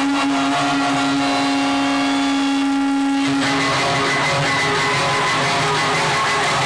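Rock band's amplified sound in an arena, recorded loud and distorted on a phone: a held electric-guitar note with overtones rings until about three and a half seconds in, over steady noise from the stage and crowd.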